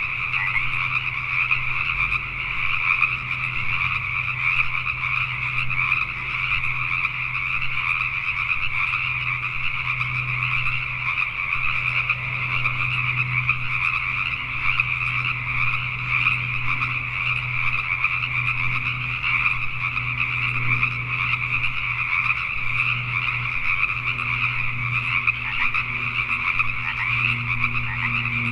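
Dense chorus of many Pacific tree frogs calling over one another in a continuous mass of overlapping croaks. A steady low hum runs faintly underneath.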